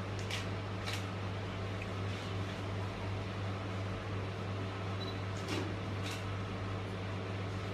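Steady low mechanical hum, with four faint clicks in two pairs: one pair near the start and another about five and a half seconds in.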